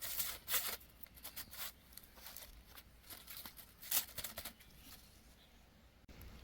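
Irregular rustling and scraping in short bursts, the loudest in the first second and again about four seconds in, like something being handled or pulled.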